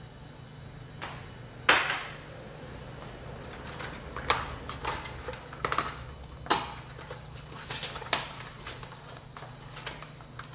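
Pieces of mud crab shell clicking and knocking against each other and the stainless steel pan as they are tossed by hand in flour, in irregular sharp clacks, the loudest about two seconds in. A steady low hum runs underneath.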